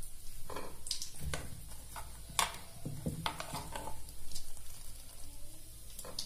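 Soaked soya chunks squeezed by hand in a pot of water: irregular wet squelches and drips, with a few short, sharp clicks.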